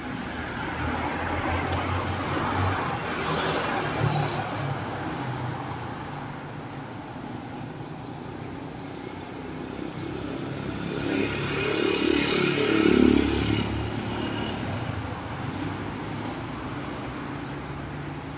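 Roadside city traffic: a steady hum of passing vehicles, with one vehicle swelling past in the first few seconds and another, louder one about two-thirds of the way through.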